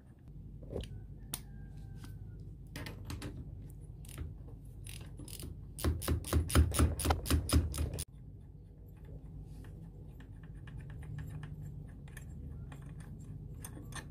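Ratchet wrench clicking as bolts are worked out of a Honda Spree 50cc scooter's top end, with scattered clinks of metal tools. A louder run of rapid, even ratchet clicks comes in the middle, and a faster, lighter ticking comes near the end.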